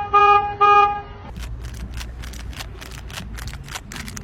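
A horn tooting in short repeated beeps, about three in the first second, followed by a run of irregular clicks and rustling.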